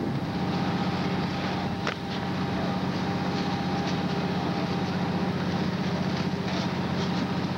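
Steady drone of a fire engine running hard to pump water to the hoses, under a constant hiss of water spray, with one sharp click about two seconds in.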